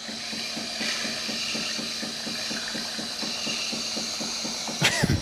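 Jura fully automatic coffee machine frothing soy milk for a latte macchiato: a steady steam hiss as milk is drawn through the milk tube into the glass, over a fast, even pulsing of the machine's pump. A brief sharper sound cuts through near the end.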